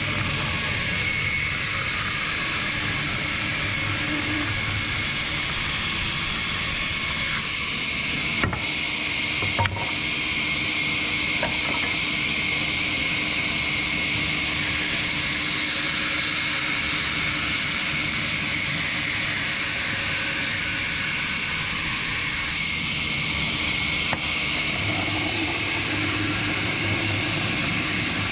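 Sawmill band saw running and ripping a timber plank: a steady hiss with a high whine and a low hum. Two sharp knocks about eight and a half and ten seconds in.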